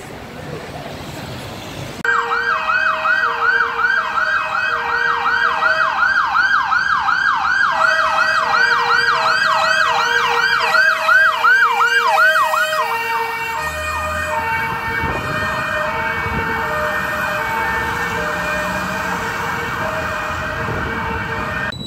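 Fire engine sirens on an emergency run: a fast yelp of about three rising sweeps a second over a slower two-tone hi-lo. About thirteen seconds in, the yelp gives way to a stepped, alternating tone that runs on until it cuts off near the end. Before the sirens start, about two seconds in, there is only traffic noise.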